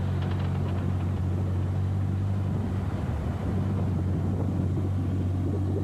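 Car running steadily down the road, heard from inside the cabin: a low, even engine hum with road and wind noise over it.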